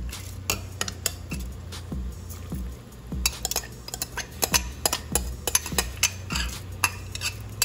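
Metal spoon clinking and scraping against a glass measuring jug as rice is knocked out into a pot of liquid: many quick clicks, busiest in the second half.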